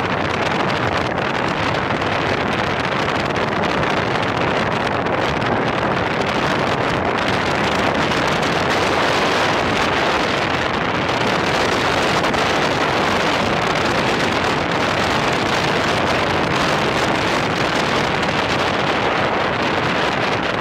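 BMW motorcycle riding up a gravel mountain track: a steady rush of wind on the camera microphone over the running engine.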